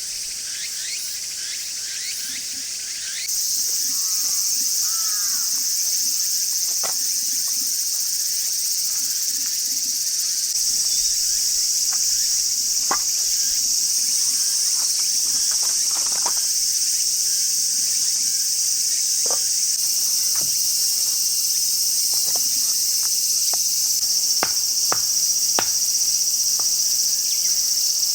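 Steady, shrill chorus of insects such as crickets, growing louder about three seconds in. Scattered sharp clicks sound over it.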